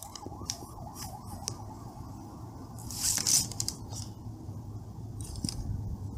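Soldering iron welding the plastic of a cracked laptop lid: short bursts of crackling and rustling, the longest about three seconds in, over a faint steady hum.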